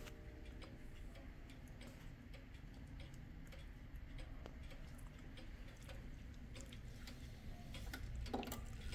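Kienzle pendulum wall clock ticking steadily and faintly, its escapement giving regular clicks. There is a brief knock near the end.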